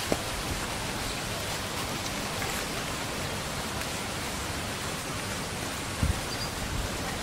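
A steady, even hiss of background noise, with a brief low thump about six seconds in.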